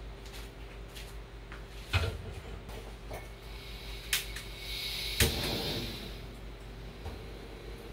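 Portable camping gas stove being lit. A pan is knocked down on it, the opened valve hisses for a couple of seconds, and a sharp click sets off a brief rush as the burner catches.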